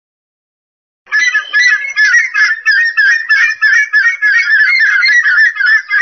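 Black ibis (red-naped ibis) calling: a rapid, loud series of short, high calls that starts about a second in and keeps going.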